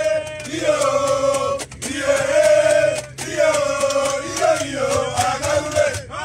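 A group of young men singing a celebration chant together in long held notes, phrase after phrase, inside a coach, with the coach's steady low engine hum underneath.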